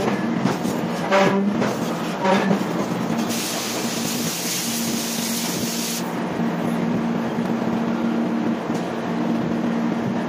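Heavy forging-press machinery running with a steady low hum, a couple of metallic clanks about one and two seconds in, and a burst of loud hissing for about three seconds in the middle.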